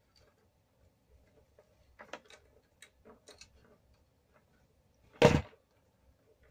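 Small clicks of pliers and a metal MC4 connector pin being handled on a solar cable, scattered and faint, with one louder knock about five seconds in.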